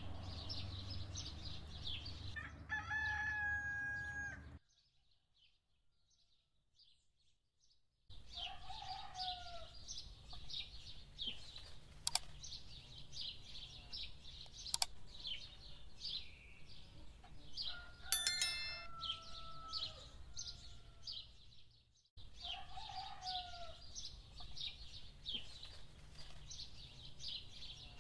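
A rooster crowing several times over a dense chorus of small songbirds chirping, broken by a few seconds of silence near the start.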